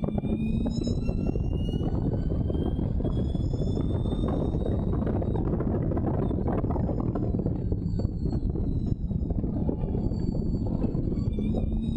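Allard J2's V8 racing engine at full throttle, its pitch climbing through the first few seconds, easing briefly around nine seconds, then climbing again near the end. Heard from the open cockpit, thick with wind buffeting and exhaust rumble.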